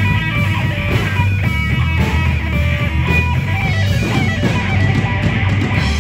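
Live band music: a Gretsch electric guitar playing a run of quick notes over bass and drums.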